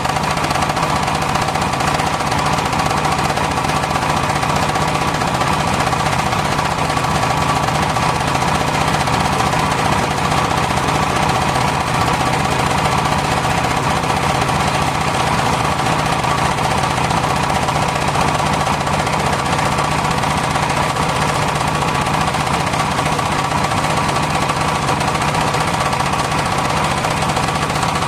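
Circular-saw sawmill machinery running steadily and loudly: an engine's fast, even chatter with a steady hum and a higher steady tone, unchanged throughout.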